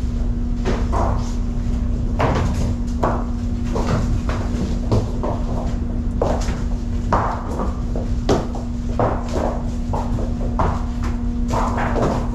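Frozen tuna clunking and knocking against each other as they are handled in a reefer ship's freezer hold, several irregular knocks a second. Underneath is a steady machinery hum at one pitch.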